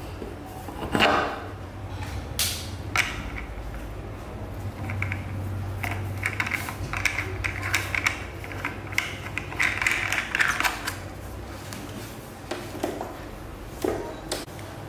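Irregular clicks and short rattles, like small hard parts being handled, over a steady low hum; the loudest click comes about a second in.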